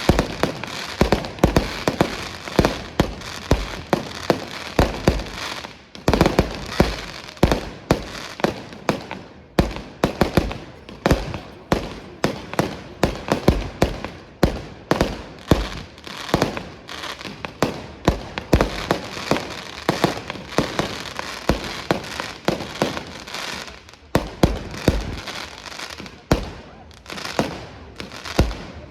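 Fireworks display: aerial shells bursting in quick succession, one to two bangs a second, with crackling between them and brief lulls twice.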